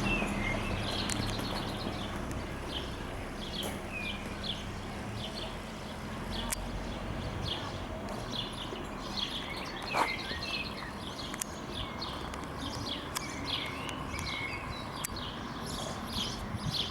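Small birds chirping repeatedly outdoors, with a low background hum fading out over the first few seconds and one brief louder click about ten seconds in.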